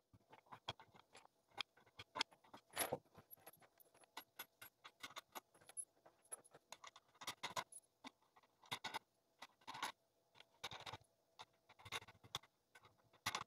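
Wooden spacer blocks, washers and nuts being fitted over the threaded steel rods of a homemade bowl-glueing press and the nuts run down, an irregular scatter of small clicks, taps and light metal rattles.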